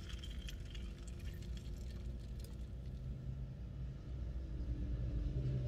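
A drink faintly trickling from a plastic bottle into a paper cup near the start, then a few quiet handling clicks, over a low steady hum.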